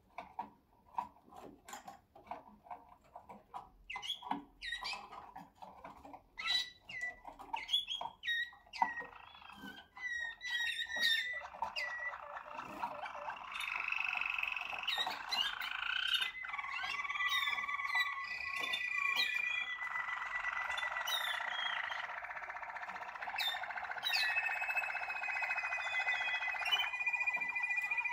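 Waterslager (Malinois) song canaries singing. Scattered chirps and calls give way about halfway through to continuous trilling song and held notes, with several birds overlapping.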